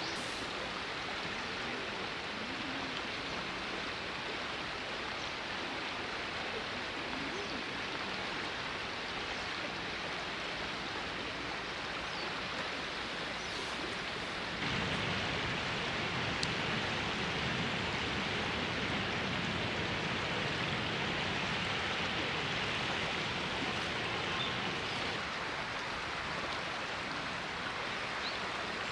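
River water flowing steadily, a constant rushing hiss. About halfway through it steps up suddenly and gets louder and brighter.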